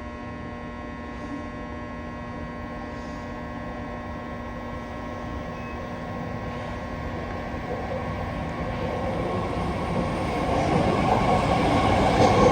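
8-car BART train approaching the station platform, its noise growing steadily louder and loudest near the end, over a steady electrical hum.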